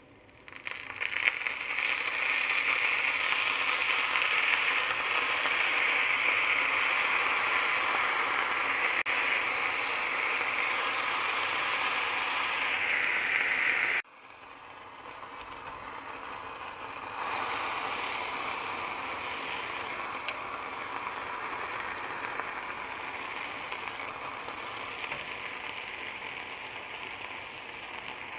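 Saucy stir-fried chicken and vegetables sizzling on a hot cast iron sizzler plate: a loud, steady hiss that starts about a second in, drops suddenly about halfway, then builds up again.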